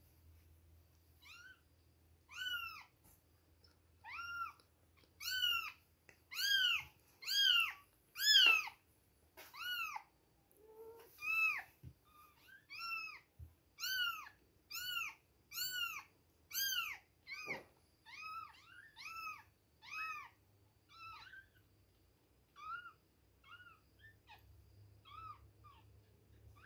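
Two-week-old kittens mewing: a long run of short, high-pitched mews, about one a second, loudest about a third of the way in and growing fainter near the end.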